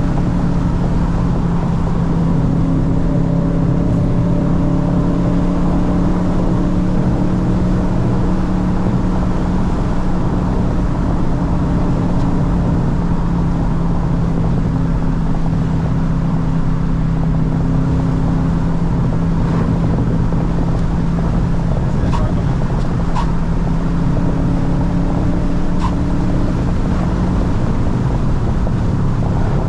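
Car engine and road noise heard from inside the cabin while cruising, a steady engine drone that changes pitch only a little, with a few faint ticks in the last third.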